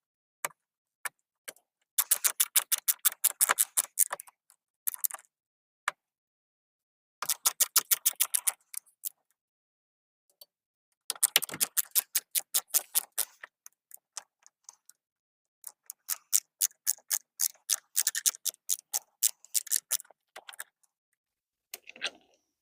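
A hand screwdriver's ratchet clicking in quick, even runs of about ten clicks a second, with short pauses between runs, as two mounting screws are backed out of a door lock.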